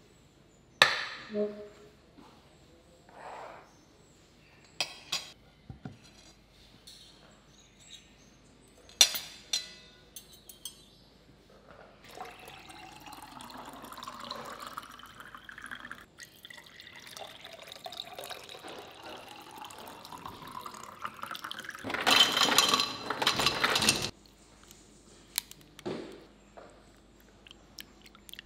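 Water poured from a glass carafe into a drinking glass, the pouring note rising in pitch as the glass fills. Before it come a few sharp clinks of dishes and cutlery set on a hard countertop, and near the end a loud rush of noise lasting about two seconds.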